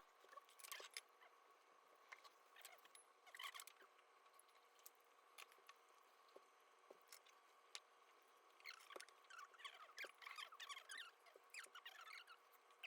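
Faint scattered small clicks and light rustles over a faint steady hum, growing busier about nine seconds in.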